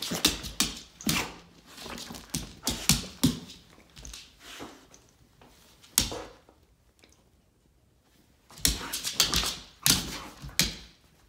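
Dog playing on a hardwood floor: nails clicking and paws thumping in quick scrabbling bursts, with a quiet pause in the middle.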